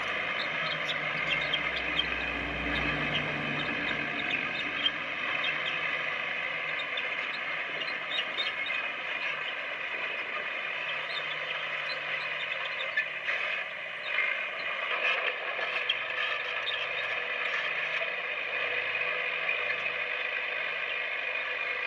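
Diesel engine of heavy earthmoving equipment running steadily at working speed, with light mechanical clanks and rattles over it. A deeper rumble sits under it for the first few seconds.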